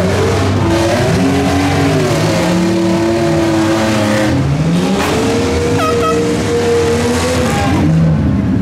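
Several demolition derby minivans' and small trucks' engines running and revving at once, their pitches rising and falling over each other.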